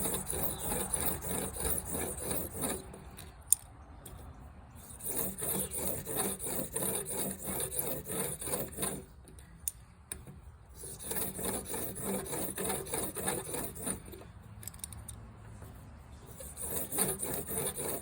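Steel broadhead blade being stroked back and forth on a 1000-grit sharpening stone in a Blade Sled jig: runs of quick, even scraping strokes with short pauses between them, and a sharp click about three and a half seconds in.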